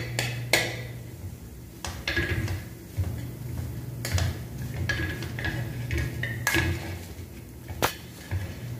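Steel spoon scraping and knocking against a frying pan while stirring and mashing spiced potato filling, in irregular clinks and scrapes.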